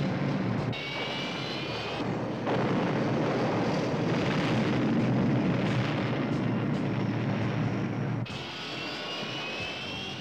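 Four-engine turboprop cargo plane's engines running at high power, a steady drone under a haze of noise. A high whine rises slowly in two stretches, about a second in and again near the end. The sound changes abruptly at each shot cut.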